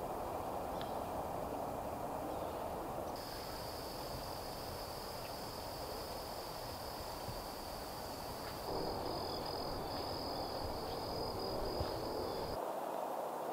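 A high-pitched insect trill that starts suddenly about three seconds in, breaks into a pulsing buzz about halfway through, and cuts off near the end. Under it runs a steady outdoor background hiss and rumble.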